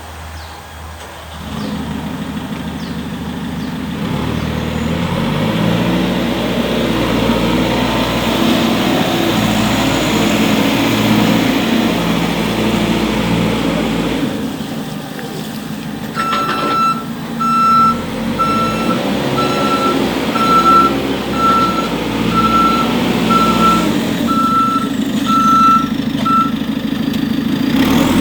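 JCB 3CX backhoe loader's diesel engine running, getting louder over the first few seconds as the revs rise. About halfway through, its reversing alarm starts beeping about once a second for roughly ten seconds while the machine backs up.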